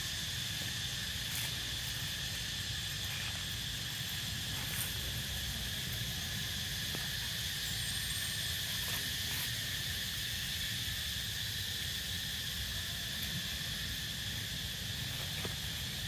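Steady outdoor chorus of insects droning at two even pitches, with a low rumble underneath and a few faint ticks.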